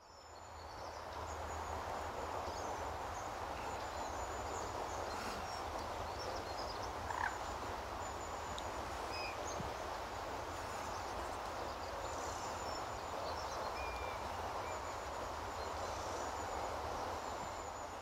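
Steady outdoor background rush with a low hum beneath, and a few faint, short, high chirps scattered through it.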